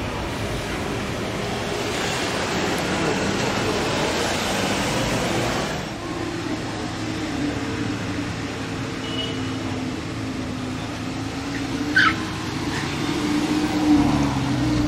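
A Ferrari Testarossa's flat-12 engine driving off amid street traffic. Then a Lamborghini Gallardo's V10 runs at low revs as it rolls slowly past, with a brief sharp high chirp about twelve seconds in and a small swell in engine sound near the end.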